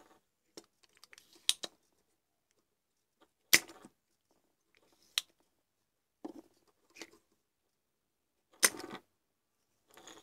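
Spring-loaded desoldering pump firing twice with loud sharp snaps, about three and a half seconds in and near the end, sucking molten solder off the joints of a CFL circuit board. Quieter clicks and rattles of the tool come between.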